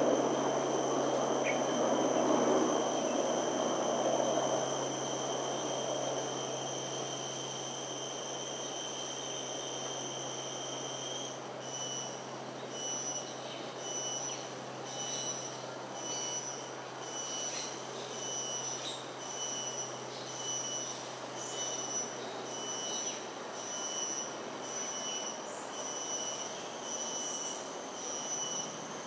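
A high, whistling insect drone, most likely a cicada, held steady at first and then, about eleven seconds in, breaking into pulses about once a second. A low rushing noise is loudest at the start and fades away over the first few seconds.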